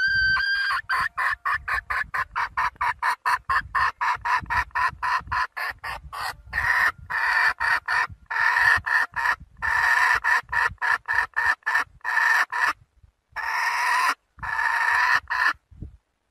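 Red junglefowl hen calling to a rooster: a rising note, then a rapid run of clucks about five a second, which lengthen into longer cackling calls with short gaps in the second half.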